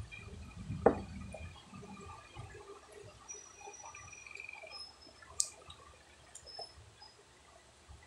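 A child sipping and slurping halo-halo from a cup, with a loud knock about a second in and a sharp click about five seconds later.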